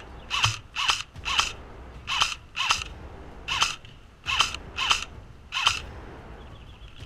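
An airsoft electric gun (AEG) fired in semi-auto: about nine single shots at uneven intervals of half a second to a second. Each shot is a sharp snap with a brief whir of the gearbox motor. The shots stop about a second before the end.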